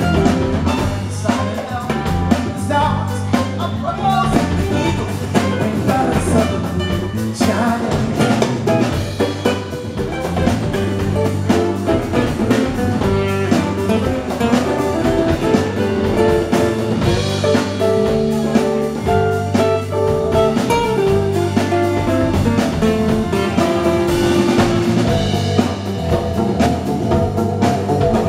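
Live acoustic band playing: two strummed acoustic guitars, electric bass guitar and a hand drum keeping a steady beat.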